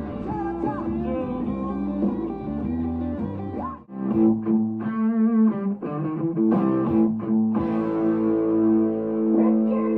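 Background music led by guitar, with a brief drop about four seconds in before fuller sustained chords.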